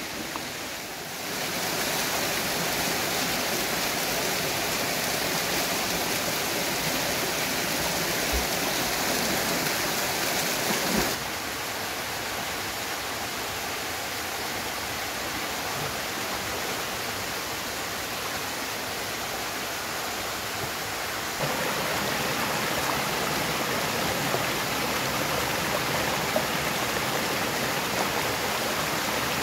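Stream water rushing steadily. It grows louder about a second in, drops somewhat about eleven seconds in, and comes back up about ten seconds later.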